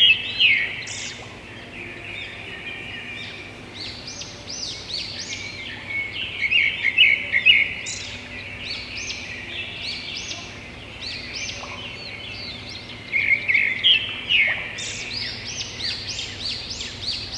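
Birds chirping and singing, many short quick calls overlapping, with louder bursts at the start, around seven seconds in and again near the end.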